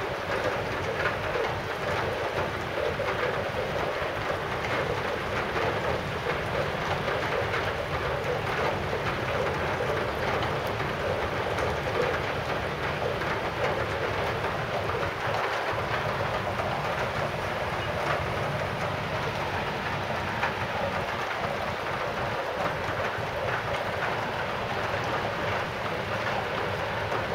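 Wet snow and sleet falling and pattering onto wet ground and surfaces: a steady rain-like hiss of fine patter that keeps on without a break.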